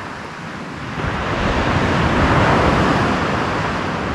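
Surf breaking on a sandy beach: a wash of waves that swells about a second in and eases slightly toward the end.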